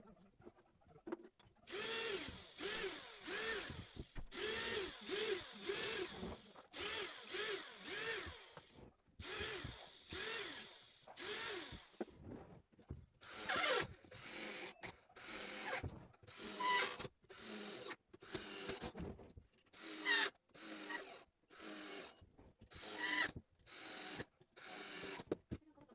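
Cordless drill-driver driving 45 mm self-tapping screws into the corners of a wooden beehive box, run in many short trigger bursts, the motor speeding up and slowing with each one. The first bursts are longer and evenly spaced. From about halfway they become shorter and quicker.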